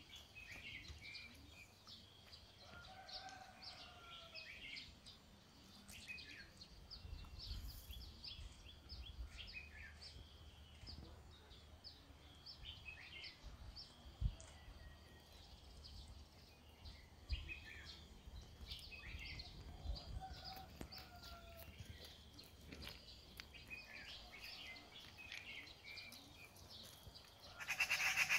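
Small birds chirping on and off over a quiet rural background, with two short bleats from the small flock of sheep and goats, one a few seconds in and one about two-thirds through. Just before the end a louder harsh burst of noise starts.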